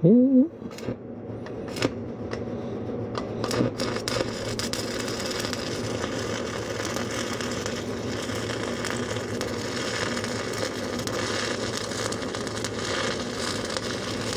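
Stick welding with a 1/4-inch 7018 electrode: the arc crackles and sizzles steadily over a low hum. A few sharp ticks come in the first seconds, and the steady crackle settles in about four seconds in.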